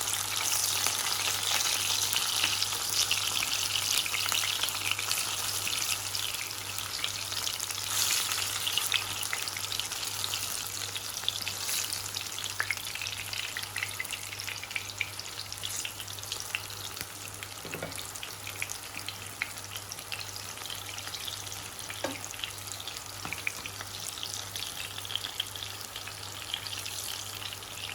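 Aubergine and tomato slices frying in ghee, a dense crackling sizzle that is strongest in the first several seconds and settles lower later.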